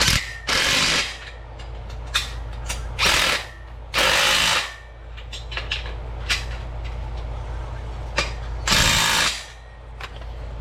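Bolts on a steel power rack being tightened with a tool: four short bursts of about half a second to a second each, with scattered clicks and knocks between them.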